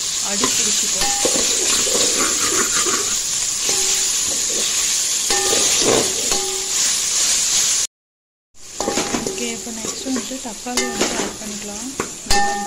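Sliced onions sizzling as they fry in hot oil in an aluminium pot, stirred with a metal slotted spoon that scrapes and clinks against the pot. The sound cuts out briefly about eight seconds in, and afterwards the scraping and clinking of the spoon stand out more.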